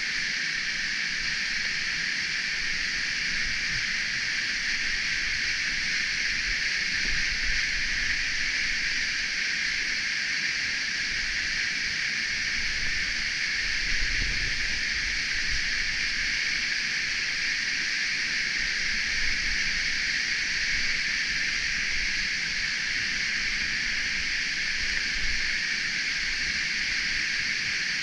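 Steady rushing hiss of water cascading down a narrow cave passage, with a few soft low bumps.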